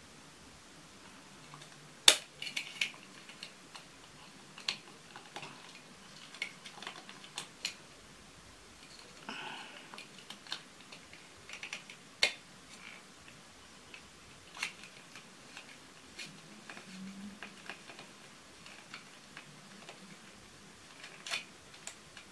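A soft lip liner pencil being twisted in a small handheld cosmetic sharpener: scattered, irregular clicks and short scrapes, the loudest a little after two seconds, around twelve seconds and near the end.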